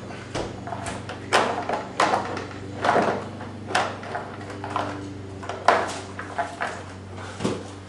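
Plastic scooter floorboard and body panels being worked loose by hand: a run of irregular clicks, knocks and scraping rattles, the loudest a little before the end.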